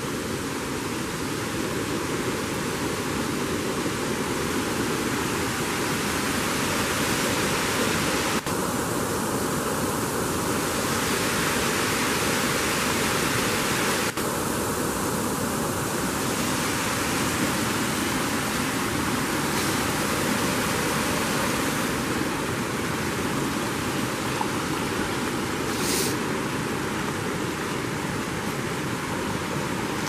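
Steady rush of a brook's water pouring over rocks and small falls.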